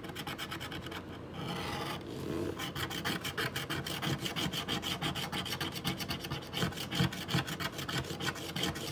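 A black plastic scraper rubbing rapidly back and forth across a scratch-off lottery ticket, scraping the coating off the winning numbers. It starts as a rougher scraping, then settles into quick, even strokes.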